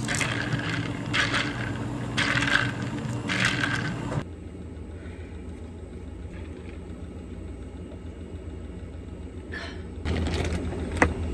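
An iced coffee being stirred with a long spoon, ice clattering against the glass in four strokes about a second apart, over a steady machine hum. Near the end a plastic zip-lock bag rustles as it is opened, with one sharp click.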